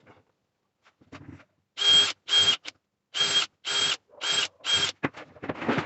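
A small electric motor run in six short bursts of about a third of a second, each at the same steady pitch: two close together about two seconds in, then four more at even spacing.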